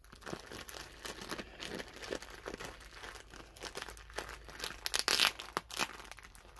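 Clear plastic bag crinkling and rustling as hands grip and work at it, a bag packed with cones of yarn. The crackles come irregularly and grow louder about five seconds in.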